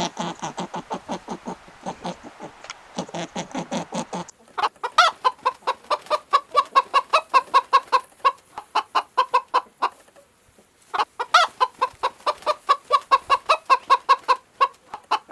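Chickens clucking: rapid, evenly repeated calls, about three or four a second, in two runs with a short pause between. The first four seconds hold a different, lower-pitched fast pulsing animal call that stops abruptly.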